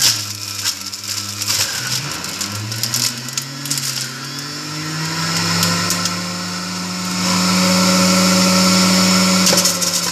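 Electric centrifugal juicer running as it grinds fruit: a steady motor whine whose pitch sags under load about a second and a half in, then climbs back and holds higher and louder over the last few seconds.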